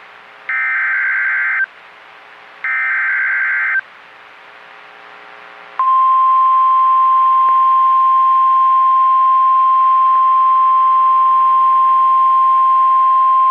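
NOAA Weather Radio emergency alert: the last two of three Specific Area Message Encoding (SAME) data bursts, warbling digital tones about a second each, then about two seconds later the steady 1050 Hz Warning Alarm Tone begins and holds. The encoded header announces a severe thunderstorm warning.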